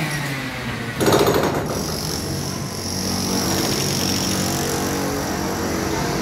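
Construction noise from nearby building work: a burst of rapid jackhammer-like hammering about a second in, then a steady machine drone with a high whine over it.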